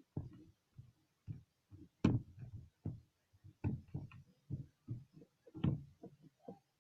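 Crunchy slime being squeezed and pressed by hand. It makes an irregular run of soft, low squishes and crackles, about three or four a second, with a couple of sharper, louder crunches about two seconds in and again near the end.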